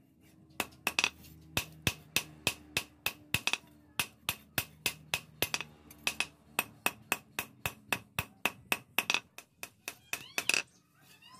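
Hand hammer striking a red-hot steel blank cut from a motorcycle disc brake rotor on an anvil, at about three to four blows a second, each with a short metallic ring: hot forging of a sword blade.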